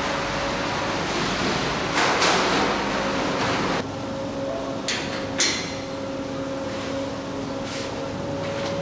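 Stainless-steel rack trolley being handled and hooked onto a machine's overhead lifting hook: a rattling clatter for about two seconds, then two sharp metal clanks about five seconds in, over a steady machinery hum.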